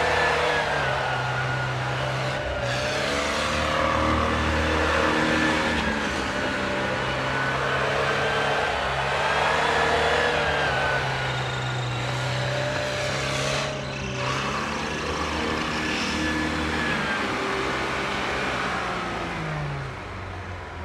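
A UAZ-469 off-roader's engine revving up and down again and again as it drives through slushy mud and snow, its pitch rising and falling several times.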